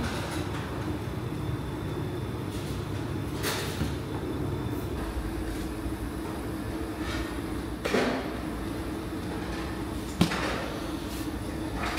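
Wet bread dough being scooped and worked by hand in a stainless-steel tub: a few soft slaps and knocks, the sharpest about ten seconds in, over a steady low kitchen hum.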